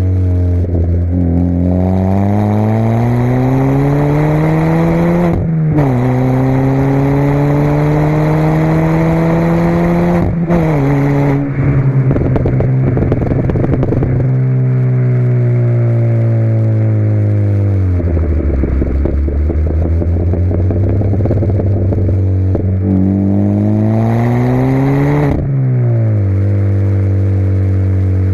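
Ford Fiesta Mk6 Zetec S 1.6-litre four-cylinder petrol engine through a non-resonated cat-back exhaust, accelerating up through the gears. The note rises and drops sharply at two gear changes, then crackles on the lift-off as it falls away. It climbs again to another gear change near the end.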